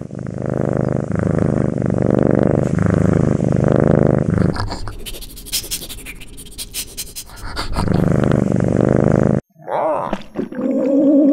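Cartoon cat snoring loudly with a rumbling, growl-like snore. The snore breaks off for a few seconds of sharp clicking sounds in the middle, resumes, and then cuts off suddenly.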